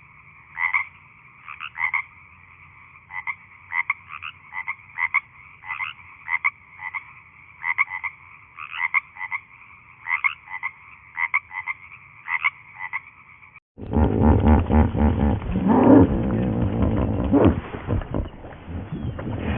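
A frog croaking over and over in short, rapid calls. About fourteen seconds in it cuts abruptly to a louder, deeper call from another animal.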